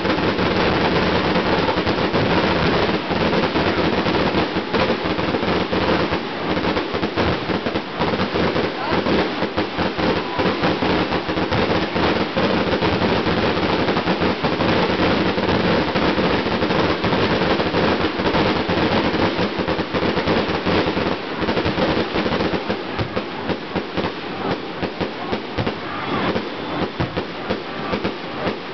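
Fireworks finale: a dense, near-continuous barrage of rapid bangs and crackling, thinning into more separate bangs over the last several seconds.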